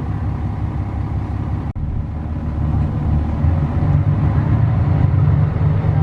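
Bus engine and road noise heard from inside the cabin: a steady low drone that grows louder about two and a half seconds in. A very brief dropout comes just before that.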